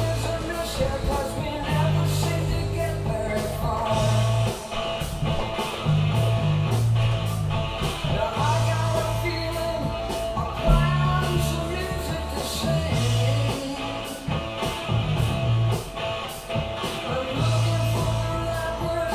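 Rock music with singing, guitar, a bass line and a steady drum beat.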